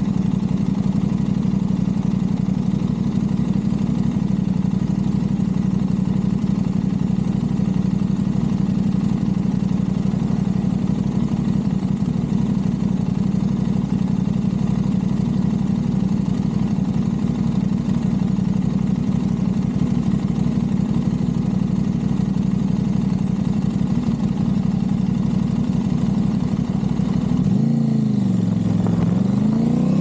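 Aprilia RS660's parallel-twin engine through a Mivv Delta Race exhaust, idling steadily. Near the end the revs sag briefly, then climb as the bike pulls away.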